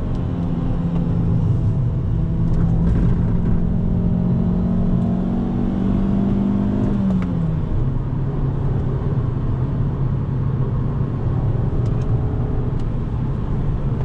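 Fiat Punto's 1.4-litre naturally aspirated four-cylinder engine pulling under acceleration, its note slowly rising for about seven seconds, then dropping with an upshift and holding steady at lower revs, over tyre and road noise.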